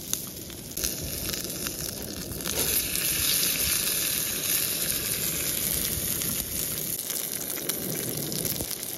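A steak sizzling in a hot griddle pan on a portable gas camping stove, with a steady hiss and many small crackles of spitting fat. The sizzle grows louder about two and a half seconds in.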